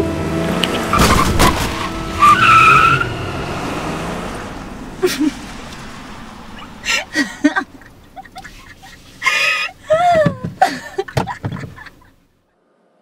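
A car's engine revving hard with tyres skidding, a couple of heavy thuds about a second in and a brief tyre squeal just after. The noise fades, and from about halfway a woman's voice comes in bursts, laughing, cut off suddenly near the end.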